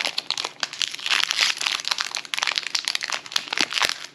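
Foil wrapper of a Disney Lorcana booster pack crinkling in the hands just after it has been torn open, a dense run of irregular crackles and sharp ticks.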